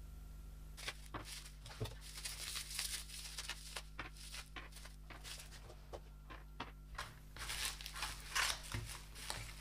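Plastic packaging and bubble wrap being handled and unwrapped: quiet, irregular crinkling and rustling with small ticks and tearing sounds, starting about a second in.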